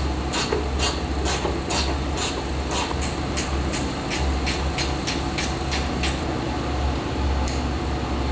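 Ratchet clicking in a slow, even rhythm, a little over two clicks a second, as the widebody fender's bolts are tightened; the clicking stops about six seconds in, with one more click a little later. A low hum runs underneath.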